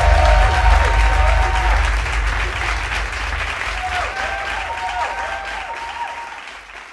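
A crowd clapping, with a few voices calling and cheering over the applause; the sound fades out toward the end.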